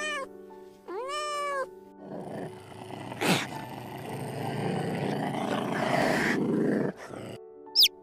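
A kitten meows once, then a big cat growls and roars for about five seconds. Near the end a chick gives two short falling peeps. Soft background music with steady held tones plays underneath.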